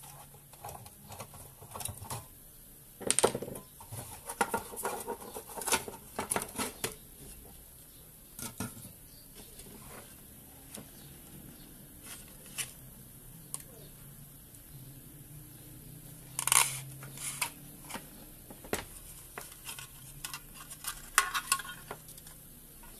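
A screwdriver prying at a thin sheet-metal electrical box and the loosened cover and box clanking and scraping as they are handled, in irregular metallic clicks and clatters. The loudest knocks come about three seconds in and again past the middle.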